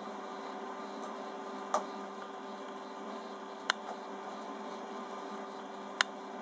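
Automatic haywire-twisting machine for fishing leaders running with a steady motor hum, with three sharp clicks about two seconds apart.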